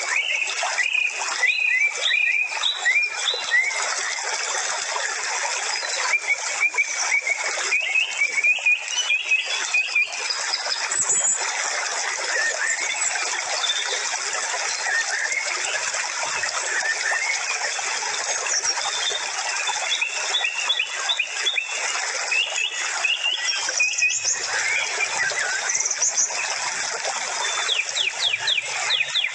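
A dense chorus of birds chirping and whistling over a steady hiss, with a quick run of repeated chirps near the end.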